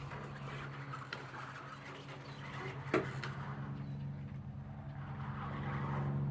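Electric drive motors and gearing of a homemade RC bulldozer running with a steady hum, with one sharp knock about three seconds in. The hum grows louder near the end.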